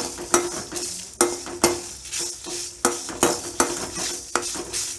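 Metal slotted spoon scraping and clinking against a dry metal kadai, stirring dried red chillies and coriander seeds as they dry-roast without oil: a sharp scrape or clink about every half second.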